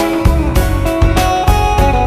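Instrumental passage of a slow Turkish pop song: sustained instrument notes over a steady beat.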